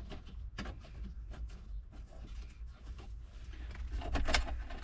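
Hand handling of plastic dash trim and screws: scattered light clicks and rustles, with a louder cluster of clicks about four seconds in, over a steady low hum.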